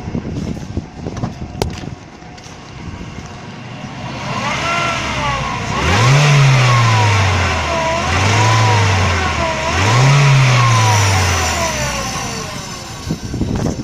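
Mazda 3 engine revved three times in quick succession, each rev rising and then falling back, with a whine that follows the engine speed up and down. The whine is the hum of a worn drive-belt roller (pulley).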